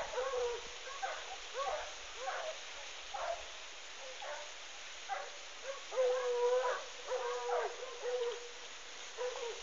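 Hunting dogs baying on a rabbit's trail: a string of short yelps, about one or two a second, with a few longer drawn-out bays a little past the middle.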